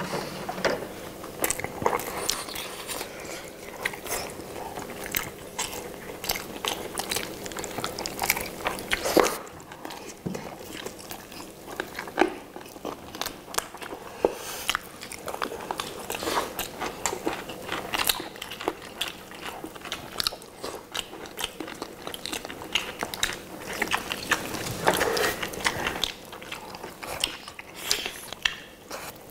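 Several people biting into and chewing sauce-glazed roasted chicken legs, a dense, irregular run of small clicks and crunches from bites and chewing, with one louder bite about nine seconds in.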